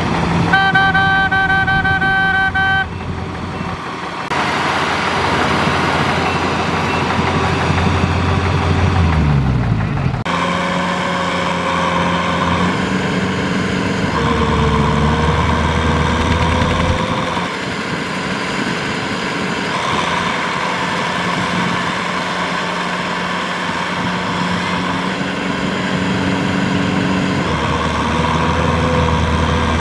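Tractor diesel engines working in mud. A horn sounds for about two seconds near the start. About ten seconds in, the engine note falls away and gives way to another engine running steadily under load.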